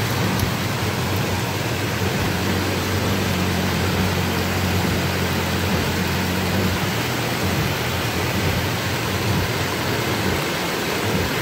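Heavy rain pouring steadily, a dense hiss. Under it a motorcycle engine runs with a low, even drone as the bike rides slowly through the floodwater, fading after about seven seconds.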